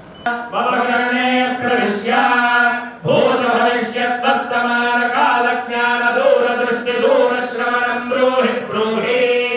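Group of male priests chanting Sanskrit Vedic mantras together, holding long steady notes with a brief pause about three seconds in.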